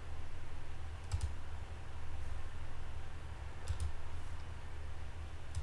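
A few sharp, isolated clicks, spaced a second or two apart, over a low steady hum.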